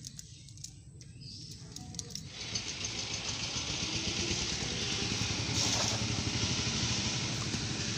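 A cast net landing on canal water with a brief splash about six seconds in, over a steady rushing noise that comes up after the first two seconds.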